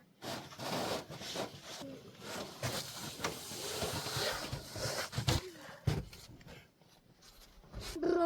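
Rustling, scraping and scattered knocks of someone moving about and handling things inside an old abandoned van, with a short quiet stretch near the end.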